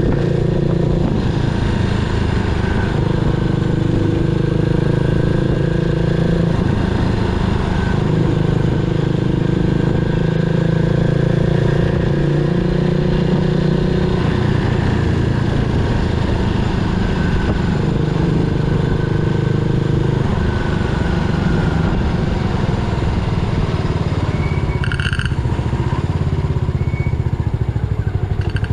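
Yamaha SR400's air-cooled single-cylinder engine running steadily, its pitch rising and falling slightly with the throttle. There is a short sharp sound about 25 seconds in.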